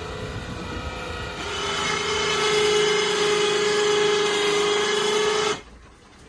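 Electric winch motor running under load with a steady whine, growing louder about a second and a half in, then cutting off abruptly near the end as the winch stops pulling.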